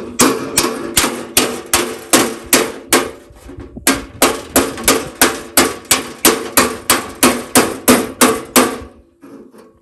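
Steel hammer beating sheet metal against a dolly, about two to three ringing metallic blows a second, with a short pause a little before the middle. The hammering stops near the end. It is hand straightening of a garden tractor's body panel with a hammer and dolly that are not the right ones for the job.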